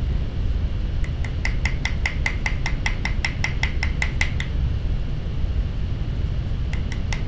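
A small riveting hammer's cross-peen tapping quickly, about five light, ringing metal taps a second, on a tube rivet in a copper disc resting on a steel bench block, flaring and texturing the rivet head. The tapping starts about a second in, pauses midway and starts again near the end, over a steady low background rumble.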